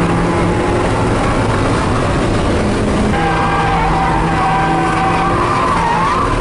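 Mazda Miata drift car driven hard on track, its engine running loud as heard from inside the cabin, with a wavering squeal from the tyres that drops away for a moment and comes back about halfway through, rising near the end.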